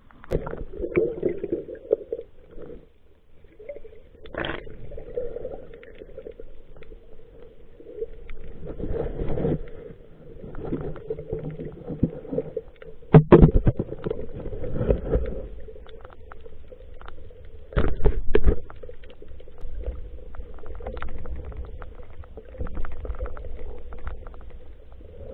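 Water sloshing and gurgling around a swimmer in the sea, muffled as heard through an action camera's waterproof case, with irregular louder splashes and knocks, the strongest about 13 and 18 seconds in.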